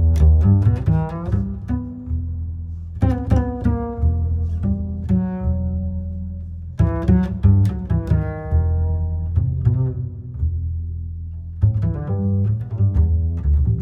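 Background music: plucked string notes over a low held bass, in short phrases that start about every four seconds.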